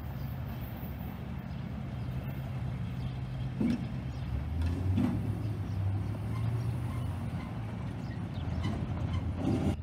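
Road vehicles, a pickup truck among them, driving over a railroad grade crossing, with a steady low engine drone and a few dull thumps as tyres go over the rails.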